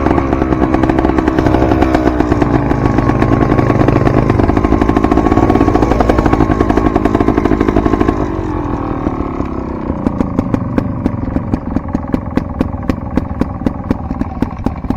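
Dirt bike engine running hard for about eight seconds, then easing to a quieter, lower running with regular sharp clicks, about two or three a second.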